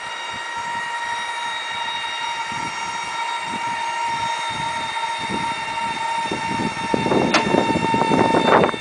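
Skylaunch wheelchair lift's powered drive raising its platform with a person aboard, giving a steady whine. Clattering and knocks grow louder over the last couple of seconds.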